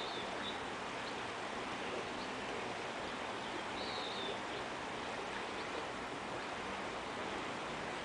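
Shallow rocky river running steadily over stones in small riffles. Two brief high-pitched peeps stand out above the water, one at the start and one about four seconds in.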